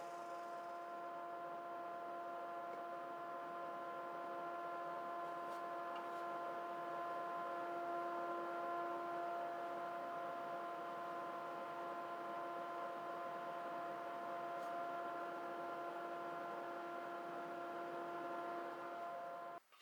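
A steady electric hum at one constant pitch, which cuts off suddenly near the end.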